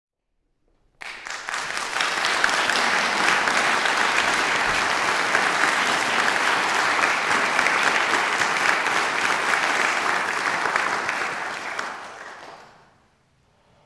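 Audience applauding, starting suddenly about a second in, holding steady, then dying away near the end.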